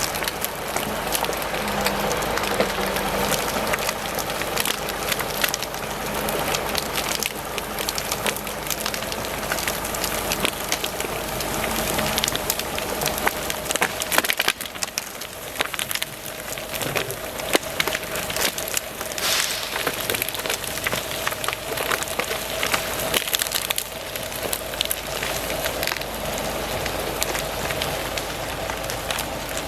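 Continuous crackling and snapping of wood and brush, thick with sharp cracks, as logs are dragged through brush during yarding. A steady hum joins the crackling about halfway through.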